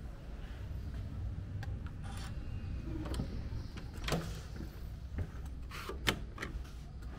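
Hotel room door's electronic key-card lock and lever handle being worked: a series of sharp mechanical clicks from about four seconds in as the card is presented and the door unlatches, the loudest just after six seconds. A low rumble of walking and handling runs underneath.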